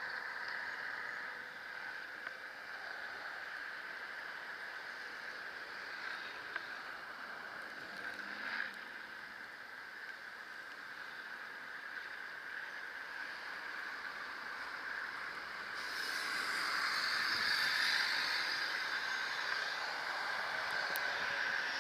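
Steady hissing ride noise of an e-bike moving through a blizzard, the tyres and wind making an even rushing sound that grows louder about sixteen seconds in.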